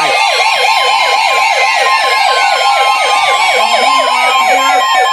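Several NOAA weather radio receivers sounding their alert alarms at once for a Severe Thunderstorm Warning: a warbling alarm repeating about five times a second and slow falling sweeps, over the steady 1050 Hz weather radio warning tone.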